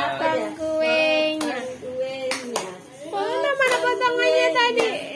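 Family voices, a child's among them, singing a birthday song with long held notes, with a few hand claps.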